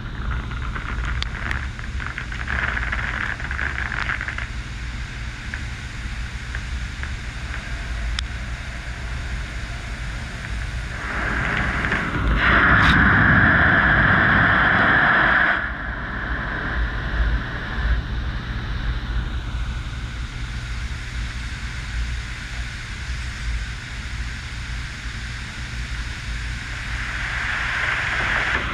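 D&S IQ Soft Touch rollover car wash working over a car: a steady wet rush of water and machinery with a low hum. About halfway through there is a much louder rush lasting about four seconds, which cuts off suddenly, and the sound builds again near the end as the brushes come back over the car.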